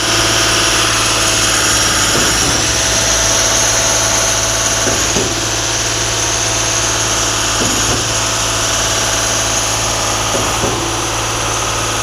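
Concrete pump running steadily with a loud engine drone. A faint recurring stroke sound comes about every two and a half to three seconds.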